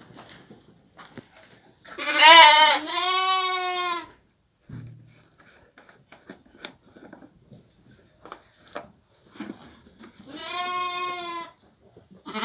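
Lambs bleating twice: a loud bleat about two seconds in that wavers and then holds steady for about two seconds, and a shorter steady bleat near the end. Faint scattered clicks and shuffling come between the two.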